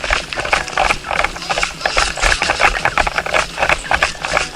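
Dense, irregular rattling and clicking with low thumps, like airsoft players' kit and footfalls on the move.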